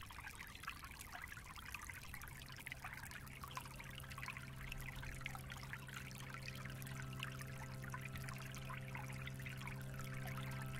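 Shallow forest stream trickling and bubbling over gravel. A steady low drone of several held tones comes in after a second or two and slowly grows beneath the water.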